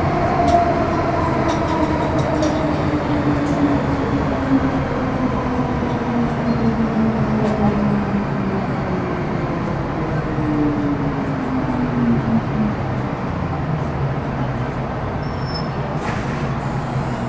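Running noise inside a Metro Cammell M-Train EMU with GEC GTO chopper traction: steady wheel and track rumble under a chopper and traction-motor whine whose tones fall slowly over about thirteen seconds as the train slows.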